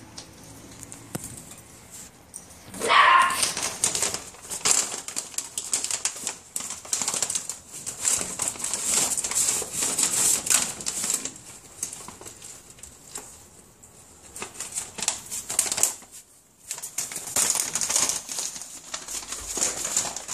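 A whippet puppy rustling and crinkling a shopping bag as it noses and tugs at it, in bursts of crackly rustle that pause for a few seconds in the middle. A short loud sound comes about three seconds in.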